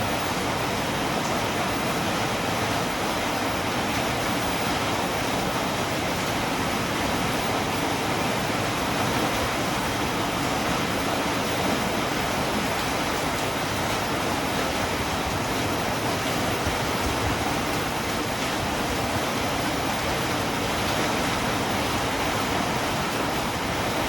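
Steady rain falling, a constant even hiss without breaks or thunder.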